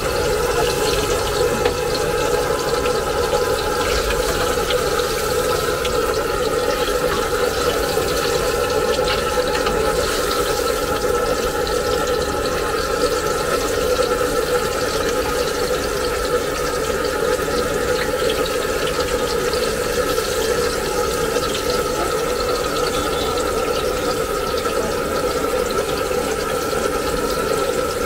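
Garlic pieces deep-frying in a large karahi of hot oil: a continuous, steady sizzle and bubbling of the oil, over a steady hum.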